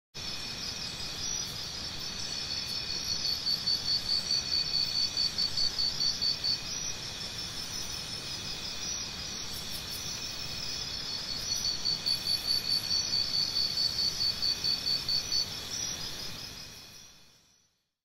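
Crickets chirping in a steady pulsing chorus, about three chirps a second, fading out near the end.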